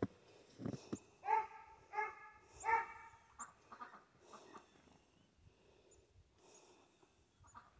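Three short, loud animal calls about two-thirds of a second apart, followed by a few faint, brief high chirps.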